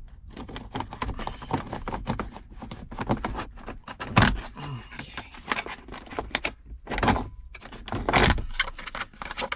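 Irregular clicks, knocks and clunks of hands working on a car's steering column and its plastic trim, with a few louder thuds.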